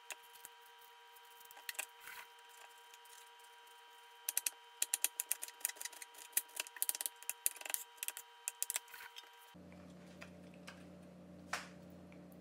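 Chef's knife dicing an onion on a wooden cutting board: a fast run of sharp knocks, several a second, starting a few seconds in and lasting about five seconds, with a few scattered knocks before it.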